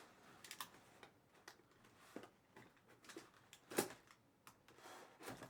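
Scattered faint clicks and taps from a sealed cardboard box being handled and pried at, with one sharper click a little past halfway through.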